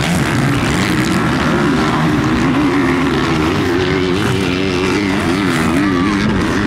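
Motocross motorcycles racing, their engines revving up and dropping back over and over as the riders work the throttle.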